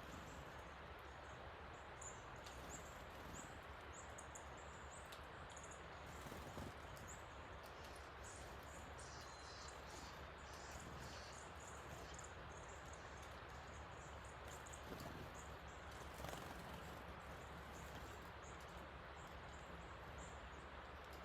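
Steady rushing of a creek in flood, running high after heavy rain, with small birds chirping often in short, high calls over it.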